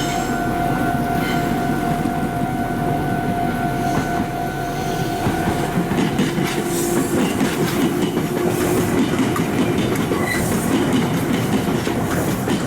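A Meitetsu electric train running through the Biwajima junction, its wheels clattering over the rail joints and points, and getting louder from about halfway in. A level-crossing bell rings steadily in a fast even pulse, most plainly in the first half.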